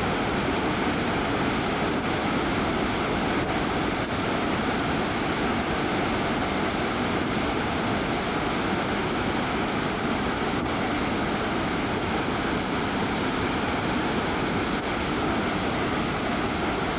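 Blackwater Falls in flood: a steady, even rush of high water pouring over the falls.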